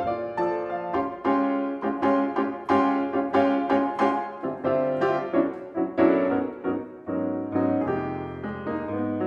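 Solo jazz piano played live on a grand piano: a busy stream of quick notes and chords.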